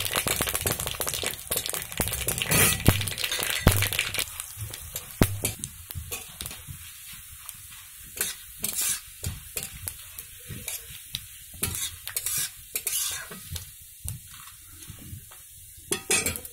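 Curry leaves, dry red chillies and mustard seeds sizzling and spattering in hot oil in a kadai, stirred with a metal spatula that scrapes and taps the pan: the tempering stage of lemon rice. The sizzle is loudest in the first few seconds and dies down, leaving scattered scrapes and clicks.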